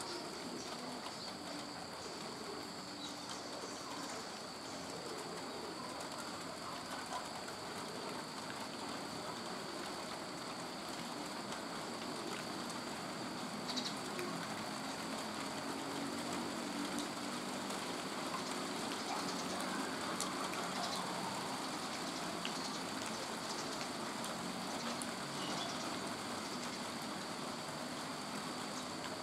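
Outdoor bird ambience: a few faint bird calls over a steady background hiss, with a constant high-pitched whine throughout.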